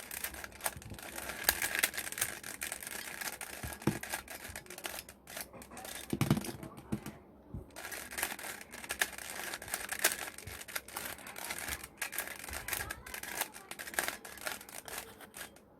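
3x3 Rubik's cube being scrambled by hand: a rapid, uneven run of plastic clicks and rattles as its layers are turned, with a couple of brief pauses.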